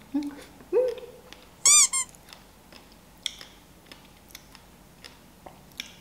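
Someone eating a strawberry dipped in white chocolate sauce: two short hummed 'mm' sounds near the start, then two sharp high squeaks about two seconds in, the loudest sounds here, followed by faint mouth clicks while chewing.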